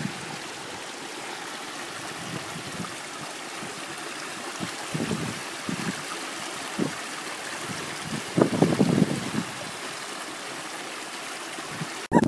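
Small rocky stream trickling and gurgling steadily over stones. A few short, louder low sounds come in between, the biggest about eight and a half seconds in.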